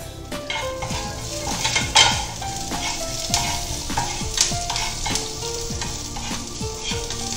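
Cumin seeds and curry leaves sizzling and crackling in hot ghee in a small frying pan for a tempering (tadka), stirred with a spatula that ticks against the pan. There is a sharp knock about two seconds in.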